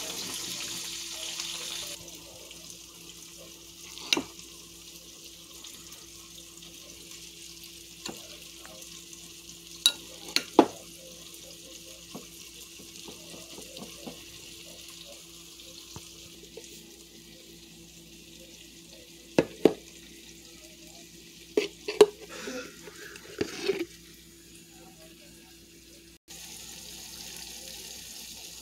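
Metal fork stirring chicken salad in a ceramic bowl: soft mixing with a few sharp clinks of the fork against the bowl, over a steady low hum. A couple of seconds before the end a steady sizzle of steak frying in a grill pan starts suddenly.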